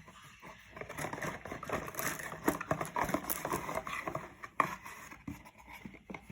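Packaging being handled: crinkling and rustling with many small crackles, and a couple of sharper clicks near the end.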